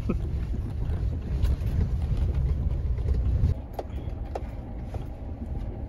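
Ford pickup truck driving on a dirt trail, heard from inside the cab: a heavy rumble of engine, tyres and wind that drops to a lighter rumble about three and a half seconds in.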